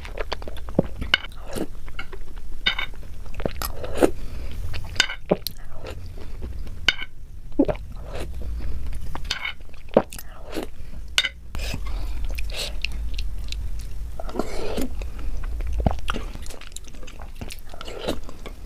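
Close-miked mouth sounds of someone biting and chewing Indian sweets: irregular sharp clicks and crunches, several a second at times, over a steady low hum.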